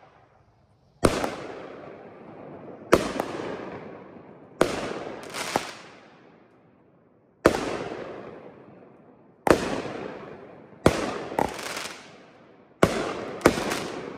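Kripton (Pyro Diablo) "Bulldog" consumer fireworks cake firing: about ten sharp bangs, a second or two apart and some in quick pairs, each trailing off in a long rolling echo.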